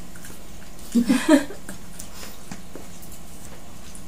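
A short burst of voice about a second in, then faint clicks and mouth sounds of people eating at a table.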